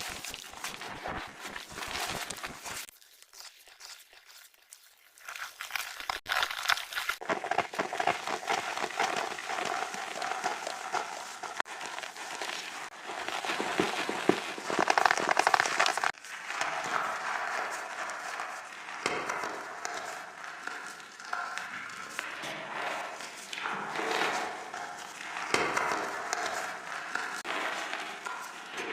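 Gritty, powdery reformed chalk being crushed and crumbled, a dense crunchy crackling that eases off a few seconds in and then picks up again.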